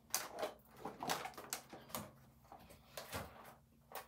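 Light, irregular knocks and rattles of things being handled: a plastic basket being lifted and moved about.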